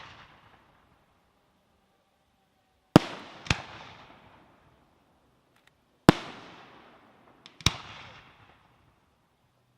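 Fireworks display: sharp bangs, two close together about three seconds in, another about six seconds in, and one near the end of the eighth second with a couple of small cracks just before it. Each bang trails off in a fading echo.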